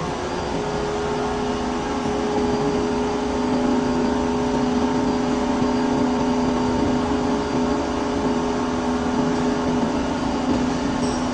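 CNC metal-cutting machine running: a steady machine hum with two held tones, a little louder from about two seconds in.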